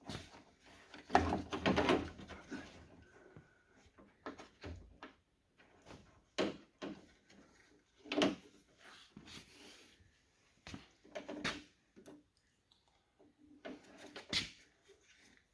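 Handling sounds of a car door's handle assembly and lock-rod clip being worked by hand: irregular clicks, knocks and short plastic-and-metal rattles, with a busier cluster about a second in and sharp knocks around six, eight and fourteen seconds in.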